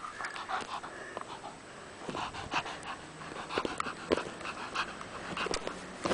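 Springer spaniel panting close up while mouthing a soccer ball, with irregular scratches and taps of its teeth and paws on the ball.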